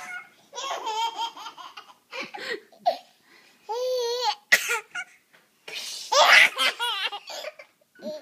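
Baby laughing in a string of high-pitched bursts and belly laughs, loudest about six seconds in.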